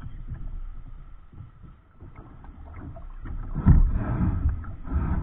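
River water lapping against a kayak's hull, with wind buffeting the bow-mounted microphone as an irregular low rumble that swells loudest about three and a half seconds in.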